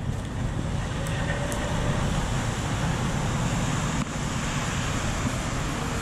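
Steady low rumble of semi-truck and road traffic noise.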